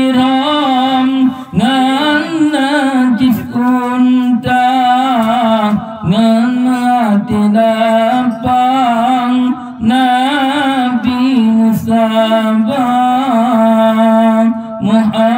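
Solo male voice singing an Acehnese qasidah (Islamic devotional song) into a microphone, in long wavering melismatic notes with short breaths between phrases.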